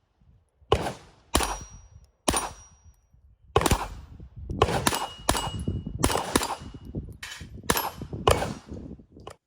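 Ruger Mark IV Tactical .22 LR semi-automatic pistol firing about a dozen shots at an uneven pace, a few of them followed by a brief ringing tone.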